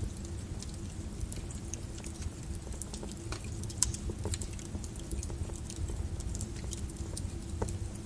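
Small wood fire crackling in a fireplace: irregular pops and snaps over a low steady rumble, with one louder pop about four seconds in.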